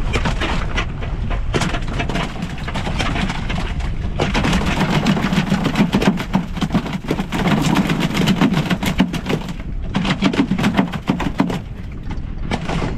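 Freshly landed yellowfin tuna thrashing on a fiberglass boat deck, its tail drumming against the deck in a fast, uneven run of knocks. The drumming is heaviest from about four seconds in, with a short pause near the end.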